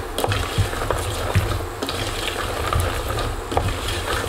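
A wooden spoon stirring hazelnuts and almonds through hot sugar syrup in a stainless steel saucepan: irregular clicks, knocks and scrapes of nuts and spoon against the pan over a faint sizzle. A low steady hum runs underneath.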